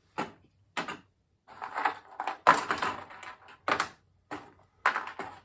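A run of irregular knocks, clicks and rustles, about eight in all, as packaging and plastic parts are handled and moved out of the way.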